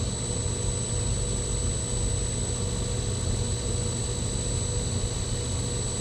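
G0704 benchtop milling machine, converted to belt drive with a 1.5 horsepower motor on a DuraPulse GS20 VFD, running steadily as a drill bit is fed into steel stock: a steady hum with a thin high whine above it.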